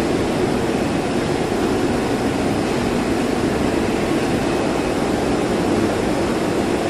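Ruizhou CNC leather cutting machine running with a steady, even mechanical noise.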